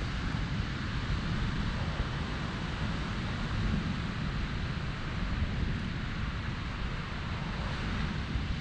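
Wind buffeting the microphone: a steady low rumble with a hiss above it.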